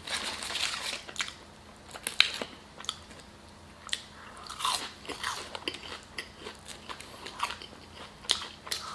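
Close-miked chewing and biting of food, with irregular crisp clicks and crunches.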